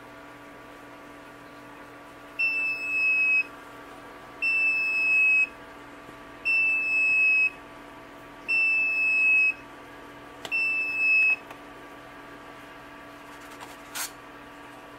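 Egg incubator's electronic beeper sounding five one-second beeps, about two seconds apart, each dipping slightly in pitch, over a steady machine hum. A single sharp click comes near the end.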